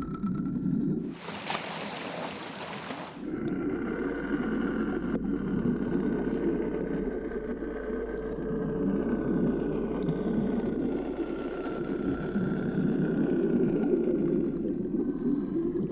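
Small boat's outboard motor running steadily, a low hum with a thin, slightly wavering whine above it. About a second in, a loud rush of hissing water noise lasts roughly two seconds.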